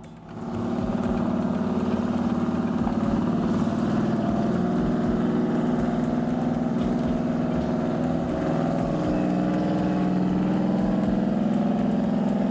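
Heavy log truck's diesel engine running steadily, swelling in about half a second in and holding an even pitch, shifting slightly in the second half.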